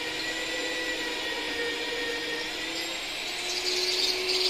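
A small high-speed motor, such as a power tool's, runs with a steady whine. A harsh rasping noise joins it near the end.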